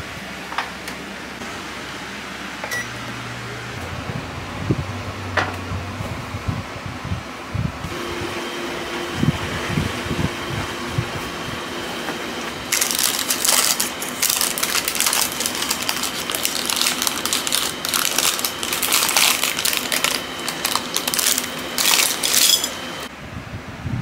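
Metal pie weights clinking and rattling in their parchment lining as they are lifted out of a freshly baked tart crust, a dense run of jingling over the second half. Before that, only a low hum and a few light knocks.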